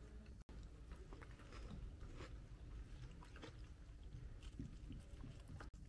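Guinea pig chewing a piece of strawberry: faint, irregular soft crunching and nibbling.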